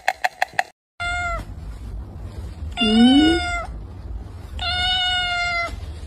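Kitten meowing three times in thin, high mews, the middle one loudest, over a low rumble. Before it, a quick run of rhythmic clicks, about six a second, cuts off under a second in.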